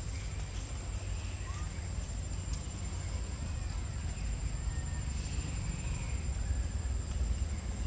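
Outdoor forest ambience: a steady low rumble with a constant thin high-pitched tone over it, and a few faint short chirps.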